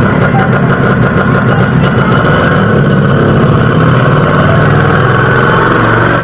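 Auto-rickshaw (bajaj) engine sound effect running steadily with a loud, rapid low chugging, then cutting off suddenly.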